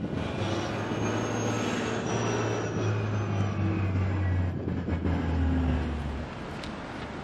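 Low, steady rumble of a heavy passing vehicle, with faint high squeals about a second in, that drops away about six seconds in.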